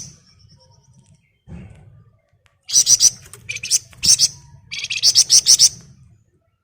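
Wergan Jawa (flamboyan) songbird giving dense, rapid rattling trills, the tight 'ngebren rapat' song, in several quick bursts starting about three seconds in.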